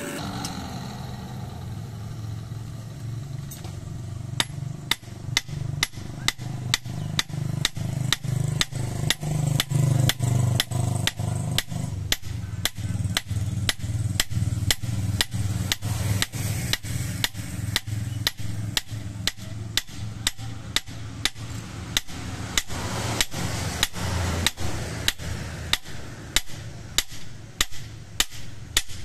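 Hand hammer striking a sickle blade on a block anvil, a steady run of sharp metallic blows about two a second, starting about four seconds in. A steady low hum runs underneath.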